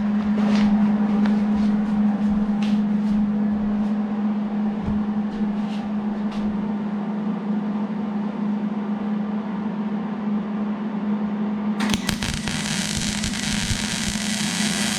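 A steady electrical hum with a few faint ticks, then about twelve seconds in a wire-feed (MIG-type) welder's arc strikes and crackles steadily as a weld is laid.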